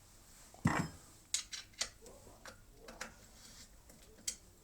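Wrench and metal pump parts being handled during reassembly: a thump just under a second in, then a string of sharp metallic clicks and clinks.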